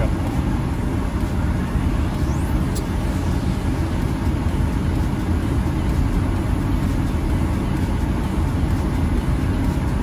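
Steady low rumble of a car's engine and tyres on a snow-covered road, heard from inside the cabin while driving slowly.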